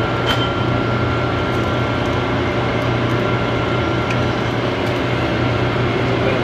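Steady low hum of workshop machinery with a thin high whine over it that fades out about two-thirds of the way through.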